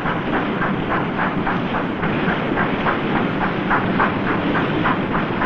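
Steam engine of a river steamboat chugging steadily in rhythmic puffs, about four a second, over a low rumble.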